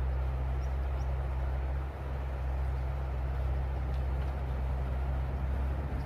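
Shallow river rapids rushing steadily, under a steady low rumble. Faint short chirps of small birds come about half a second and a second in.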